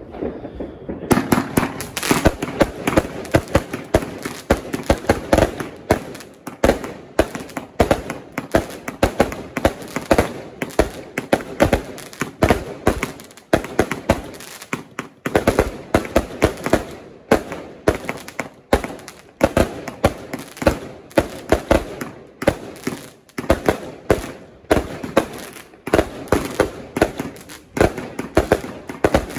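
Bonbridge Thunderstorm 175-shot salute cake firing: rapid loud bangs, several a second, one after another, starting about a second in.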